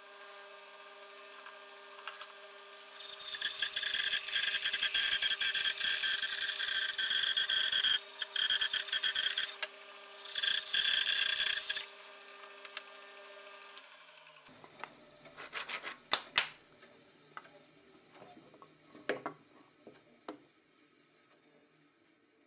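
Homemade wooden bandsaw driven by a reclaimed 2 hp electric mulcher motor, running with a steady hum while the blade saws through a softwood board twice: a loud rasping cut of about five seconds, a short pause, then a shorter cut. About halfway through the motor is switched off and runs down, followed by a few sharp knocks of wood being handled on the table.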